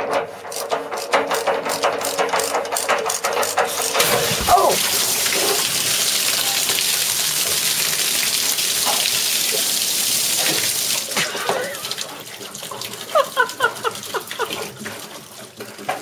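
Rapid clicking of a wrench loosening an electric water heater's upper heating element, then about four seconds in water bursts from the element port in a loud, steady hissing gush, driven by mains pressure because the cold water supply was left open. The gush eases off about eleven seconds in, followed by scattered knocks and steps.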